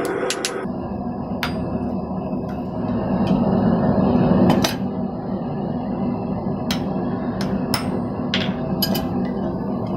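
Hand hammer striking red-hot thin sheet steel on an anvil: irregular blows about a second apart, the loudest about four and a half seconds in. A steady low rumble runs underneath and swells for a moment just before that blow.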